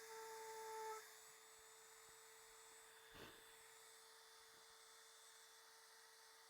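Faint steady high whine of a Dremel rotary tool running while drilling into cured resin. It is a little louder and fuller for the first second, and there is one soft click near the middle.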